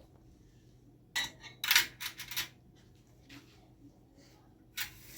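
Hard objects knocking and clattering together: a quick cluster of sharp knocks a little over a second in, then one more near the end.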